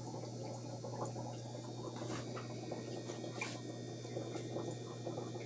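Aquarium air bubbling and gurgling up a sponge filter's lift tube, with a steady low hum underneath and a few faint ticks.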